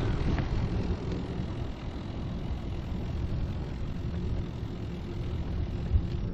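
Steady low rumble of wind on the microphone and road noise while riding a touring bicycle, with a single sharp knock near the end.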